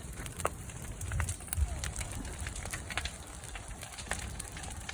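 Brush pile burning, crackling with irregular sharp pops, with a brief low rumble about a second and a half in.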